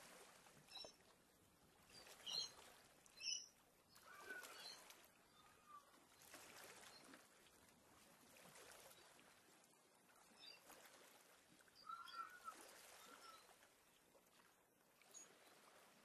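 Australian bush birds calling sparsely: faint, scattered short high chirps, two of them louder a few seconds in, and a few short whistled notes, over a faint steady hiss.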